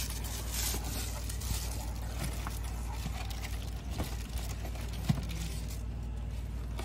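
Cardboard packaging rustling and scraping as a grass cutter's metal shaft is drawn out of its long box, with a single sharp knock about five seconds in, over a steady low rumble.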